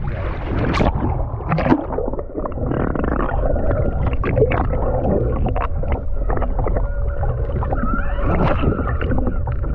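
Underwater sound through a camera held below the sea surface: a low rumble of moving water with scattered sharp clicks and taps, the strongest about a second and a second and a half in, and a faint steady hum in the second half.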